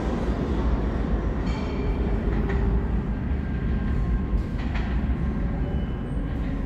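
R179 subway train running away through the tunnel, a steady low rumble that eases slightly toward the end. A few brief high squeals sound over it, about a second and a half in, then near two and a half and five seconds.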